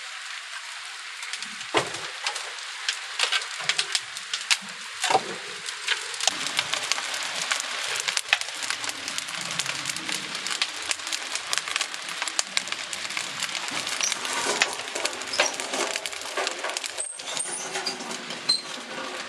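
Wood fire crackling and hissing in the firebox of a wood-fired kiln during stoking. A couple of heavier knocks of split firewood come about two and five seconds in.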